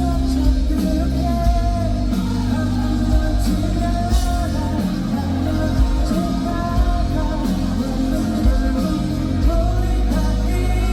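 A male lead vocalist sings a pop-rock song over a live band, with bass, drums and guitar, played through a concert PA during a soundcheck.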